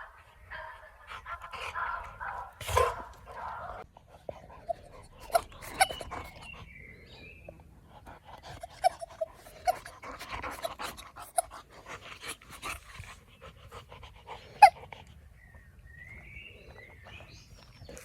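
Young boxer dog panting, with scattered clicks and a few short squeaks, likely from its squeaky ball. The loudest squeak comes about three quarters of the way through.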